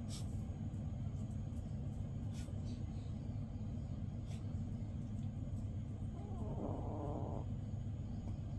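Sleeping chihuahua snoring softly, with one louder snore lasting about a second, about six seconds in, over a steady low rumble.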